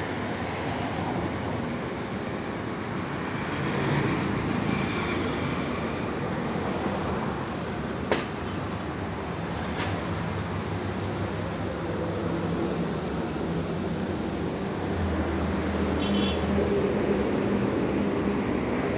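Steady outdoor background rumble and hiss. A sharp click comes about eight seconds in, and a low hum swells briefly near the end.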